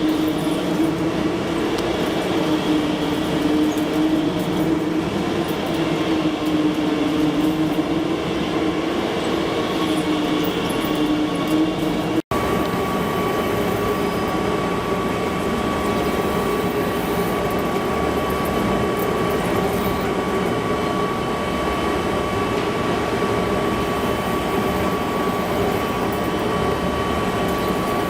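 Heavy metal-working lathe running and cutting, a steady machine noise with a wavering hum. About 12 seconds in, a brief dropout gives way to a different steady machining noise with a thin, steady high whine.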